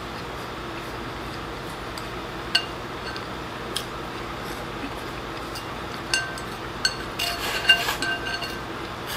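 Chopsticks clinking and scraping against a glazed ceramic rice bowl as the last rice is shoveled in. There are a few separate light clinks, then a quick run of clinks with a short ringing tone from the bowl near the end, over a steady low background noise.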